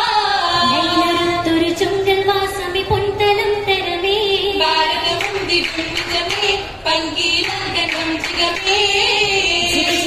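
Oppana song, a Mappila song sung by a group with female singing voices leading, accompanied by sharp hand claps now and then from the dancers.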